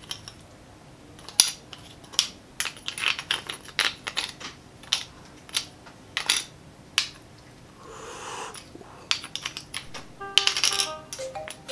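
Metal spoon scraping and clinking inside a split, baked bone-marrow bone as the marrow is scooped out, in a string of sharp irregular clicks and scrapes.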